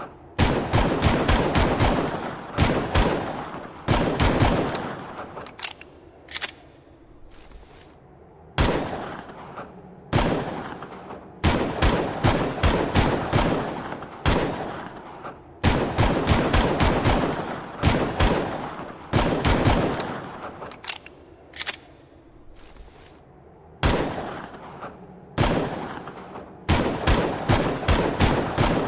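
Longslide pistol sound effect: strings of rapid gunshots, several a second, each string trailing off in an echoing tail, with short pauses between the strings.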